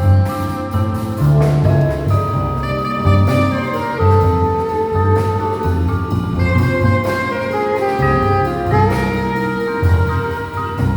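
Small jazz band playing live: a melody instrument holds long notes over a bass line and drum-kit cymbals, with a note sliding up a little before the end.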